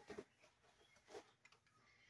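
Near silence with a few faint clicks and rustles, just after the start and again about a second in, as a fabric seat is worked onto a roller racer's tube frame.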